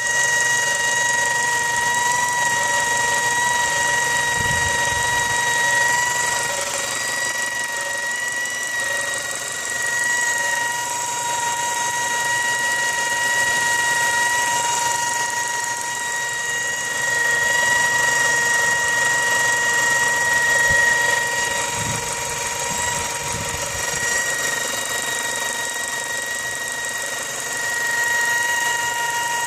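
2004 Mazda 6 with its engine running and a steady high-pitched whine that holds one pitch throughout.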